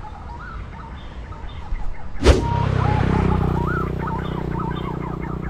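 A slingshot fired once about two seconds in, a single sharp snap, taken at green pigeons in a tree. A motor vehicle's engine hum swells right after and slowly fades, and small birds chirp throughout.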